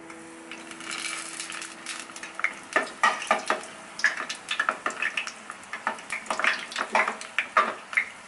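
Breaded Scotch egg deep-frying in hot oil in a small saucepan: a sizzle that builds from about a second in, with frequent sharp crackles and pops.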